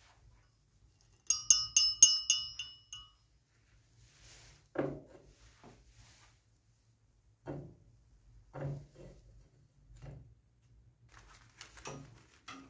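A quick run of bright clinks that keep ringing for a moment, about one to three seconds in, then several separate dull knocks and taps as parts of an electrolysis rust-removal tank are handled and laid in place.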